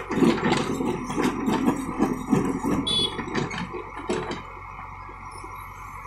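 JCB 3DX backhoe loader digging: its bucket scrapes and clatters through broken road surface and soil over the running diesel engine for about the first four seconds, then the engine runs on more quietly as the loaded bucket lifts.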